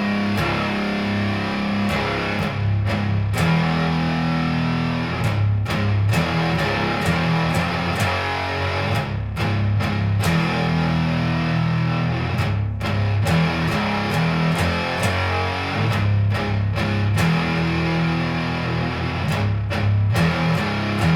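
Epiphone SG Junior electric guitar with a P90 bridge pickup, tuned down into drop D and played through a Hill Giant One Knob Fuzz pedal: low, fuzz-distorted riffing, broken by short stops between phrases.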